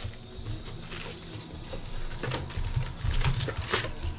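Foil-wrapped trading card packs rustling and crinkling as they are handled and lifted out of a cardboard hobby box, with a scattering of light clicks and taps as they are set down.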